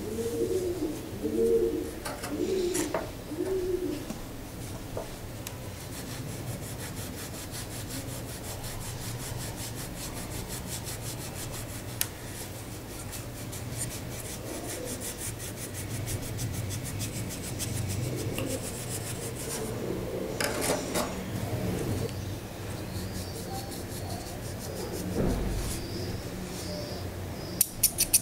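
Steady hand rubbing of a rusty steel thread-snip blade with a small folded abrasive: quick, even scraping strokes of abrasive on metal. A dove coos several times in the first few seconds, and a few sharp metal clicks come near the end as the snips are handled.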